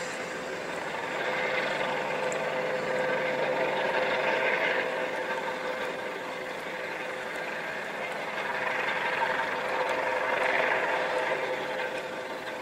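Helicopter hovering low over water: a steady engine whine under a rushing noise from the rotors, swelling and easing twice.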